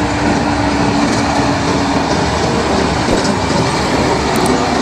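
Heavy tipper dump trucks driving along a dirt haul road: a steady, unbroken rumble of diesel engines and tyres on gravel, with a low hum through the first two seconds.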